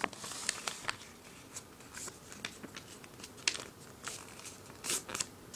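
A sheet of paper rustling and crinkling in scattered short crackles as it is folded and creased by hand.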